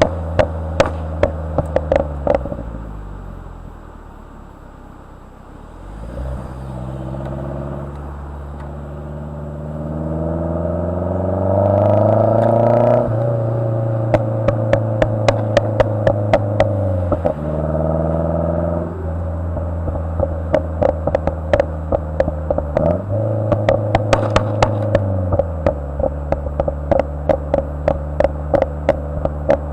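2010 Mazdaspeed3's turbocharged 2.3-litre four-cylinder through an Xforce turbo-back exhaust: the revs climb steadily for several seconds, then on lift-off the exhaust fires rapid strings of pops and crackles, again and again. The crackling comes from a Versatune tune with pops and crackles enabled.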